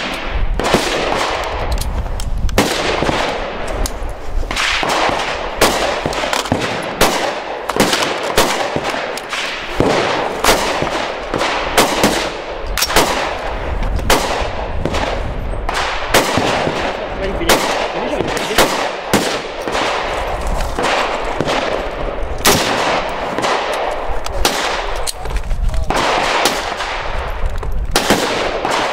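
Gunfire at an outdoor shooting range: many single gunshots at irregular intervals, often close together, each followed by a brief echo.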